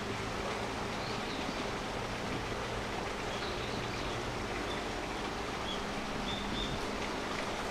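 Steady outdoor background rush with a faint low hum, and a few short, high bird chirps scattered through it.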